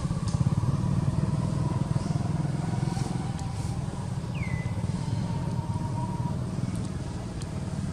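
A motorbike engine running steadily, its pulsing hum fading slightly over a few seconds. About halfway through there is one short, high, falling chirp.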